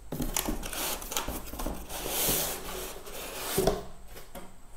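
Cardboard scraping and rubbing as a slim cardboard accessory box is slid out of a laptop's shipping box, with a knock about three and a half seconds in.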